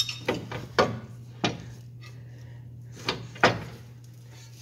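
About six sharp metallic knocks and clanks of hand tools and suspension parts being handled, irregularly spaced and quieter toward the end, over a steady low hum.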